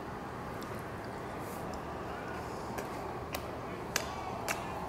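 A steady low background with faint voices, and a few sharp clicks and crinkles in the second half from a paper food wrapper being handled while eating.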